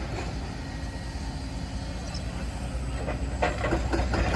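Steady low engine rumble, as of heavy diesel plant idling.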